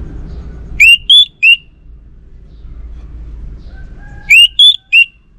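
Orange-headed thrush (anis merah) singing: two loud phrases of three short rising whistled notes each, about a second in and again near the end, over a low steady rumble.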